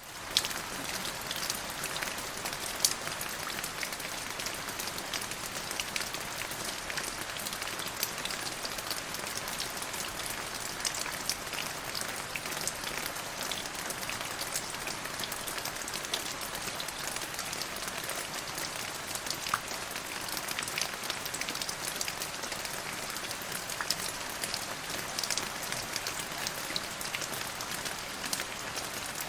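Steady rain falling on a surface, an even hiss with many sharp drop ticks scattered through it.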